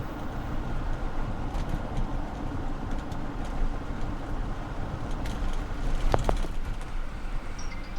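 Lexus SC430 on the move: steady road and engine rumble, with a few light ticks, the strongest about six seconds in.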